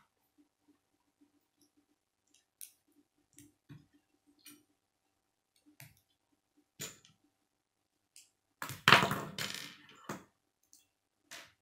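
K'nex plastic rods and connectors clicking and snapping together in the hands, as scattered sharp clicks. About nine seconds in, a louder clatter of loose plastic pieces lasts about a second.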